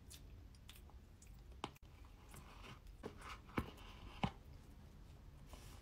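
Quiet eating sounds of a person eating trifle: soft chewing with a few sharp clicks, the loudest two a little past the middle.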